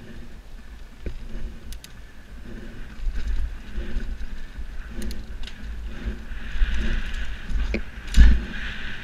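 Mountain bike ridden fast down a dirt singletrack: tyres rolling over the dirt with rattles and clicks from the bike and wind rumbling on the action camera's microphone, getting louder from about three seconds in, with a heavy thump near the end.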